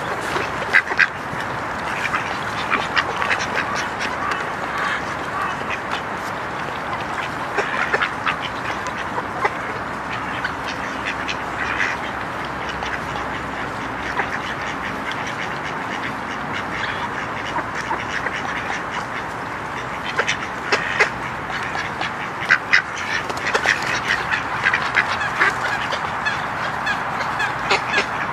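A flock of mallards and domestic ducks quacking and chattering without a break. The calls come thickest with sharp short quacks about a second in and again through the last third.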